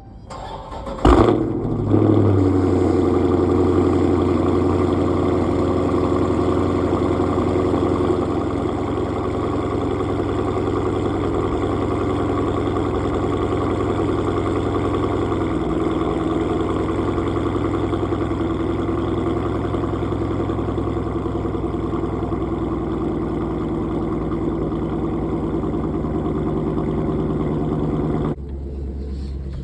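Dodge Challenger Scat Pack's 6.4L HEMI V8 starting up after a fresh oil change. It catches about a second in with a brief burst, runs a little higher and louder for several seconds, then settles into a steady idle.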